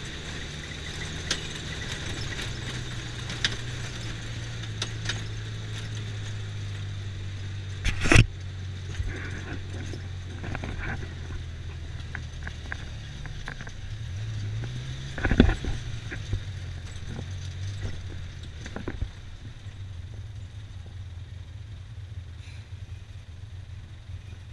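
Polaris Ranger side-by-side's engine droning steadily under way, heard from the cab, with the pitch climbing briefly as it speeds up about fourteen seconds in. Two loud knocks stand out, about eight and fifteen seconds in, with lighter rattles between.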